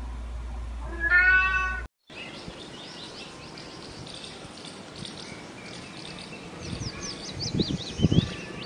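A cat meows once, about a second in. After a sudden cut comes outdoor background noise with birds chirping in quick falling notes near the end, and a few low thuds.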